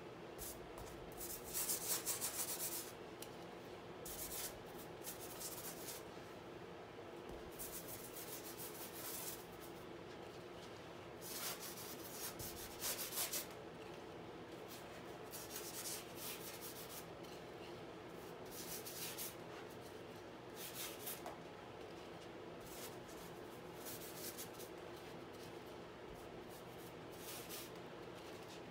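Short, scratchy rubbing strokes on a painting canvas as paint is worked onto it, coming in irregular bursts, some single and some in quick clusters.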